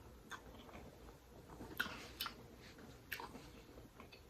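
A person chewing food up close, with a few soft, wet mouth clicks and smacks.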